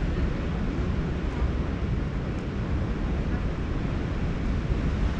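Steady wind buffeting the microphone, a low rumbling noise, with ocean surf washing underneath.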